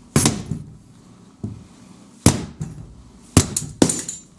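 About five sharp, irregularly spaced knocks and cracks as a glued-and-screwed mirror is forced loose from a wooden dresser.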